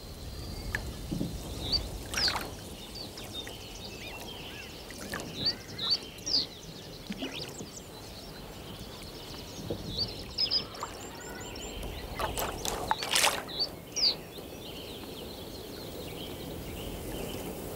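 Hooked bream splashing at the water's surface as it fights the line, with a short burst of sharp splashes about two-thirds of the way in. Birds chirp now and then.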